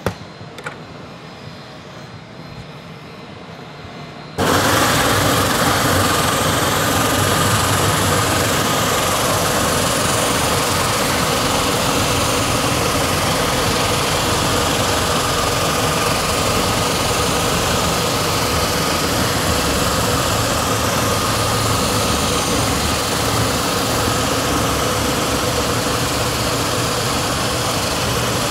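Floor buffer with a Hydro Sand multi-drive plate and 40-grit sanding discs switches on about four seconds in, then runs steadily with a constant whine as it sands a hickory floor panel.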